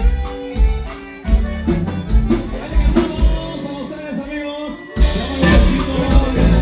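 Norteño band music with a strong bass line and a melody on top. It thins out briefly twice and comes back in full about five seconds in.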